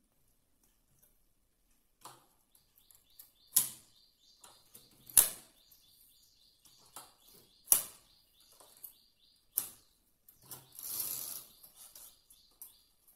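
Sharp clicks and knocks of metal and plastic hand tools being handled against a flatbed home knitting machine's needle bed, four louder knocks a couple of seconds apart. A short rustle comes near the end.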